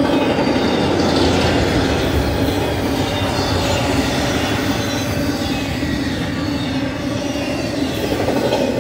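BNSF intermodal freight train's flatcars carrying truck trailers rolling past at speed: steady, loud rolling noise of steel wheels on the rails.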